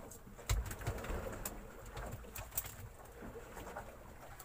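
Irregular knocks and clicks from handling gear on a small wooden fishing boat over a low rumble, with the heaviest thump about half a second in.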